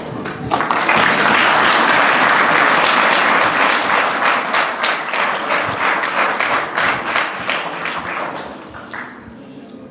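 Audience applauding: the clapping swells within the first second and holds steady, then thins to scattered claps and dies away near the end.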